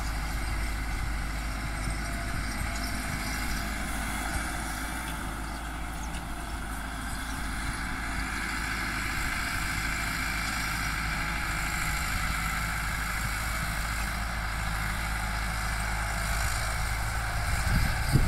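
Massey Ferguson tractor's diesel engine running steadily under load while pulling a disc harrow through the soil.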